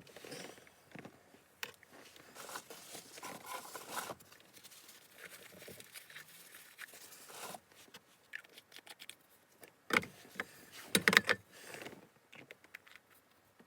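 Small parts of an airbrush kit being handled: irregular scraping and rustling with scattered clicks, and a cluster of louder clicks and clatter about ten seconds in.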